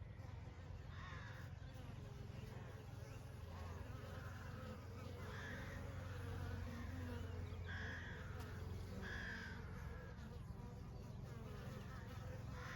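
Honey bees buzzing in a steady low hum, with a few short higher-pitched calls over it.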